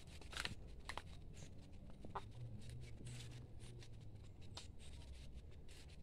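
Quiet background: a faint steady low hum with a few scattered light clicks and rustles.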